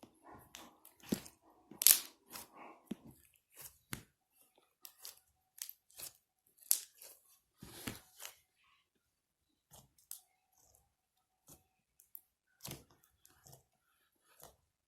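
Slime being handled, giving a run of irregular crackly pops and clicks, thick and loudest about two seconds in, then thinning out to scattered clicks.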